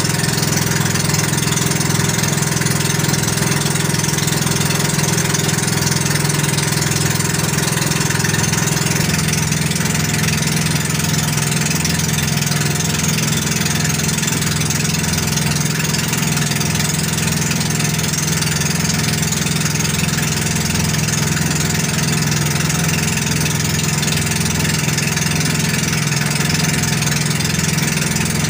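Outrigger boat's engine running steadily under way, a loud constant drone over a steady hiss of water and wind; its low note shifts slightly about nine seconds in.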